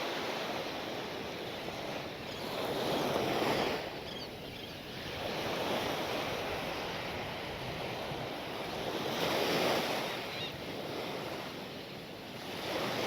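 Small waves washing onto a sandy beach, the wash swelling and fading every few seconds, with some wind on the microphone.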